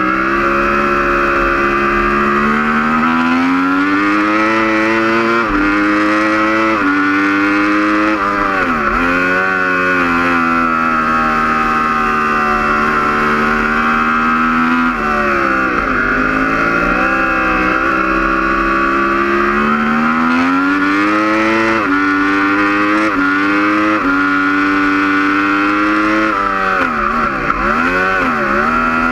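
Onboard sound of a Yamaha R1 superbike's crossplane inline-four engine at race pace. The engine pitch climbs through quick upshifts, then falls with downshifts into corners about nine seconds in, around sixteen seconds, and near the end, before pulling up through the gears again.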